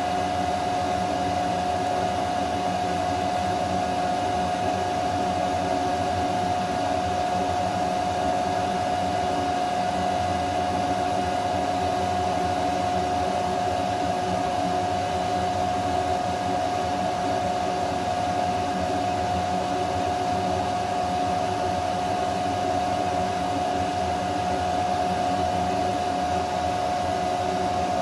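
Steady whirring of a laser engraver's cooling and exhaust fans and air-assist pump running during an engraving job: an even rush of air with a strong steady hum tone on top.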